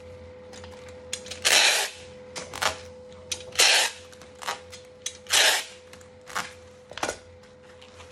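Objects being handled: sharp clicks and knocks, with three short scraping rushes about two seconds apart, over a faint steady hum.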